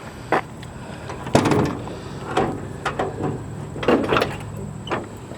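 Hood of a 1952 Ford F1 pickup being unlatched and raised: a series of metallic clicks and clunks from the latch and hinges, about six knocks spread over a few seconds.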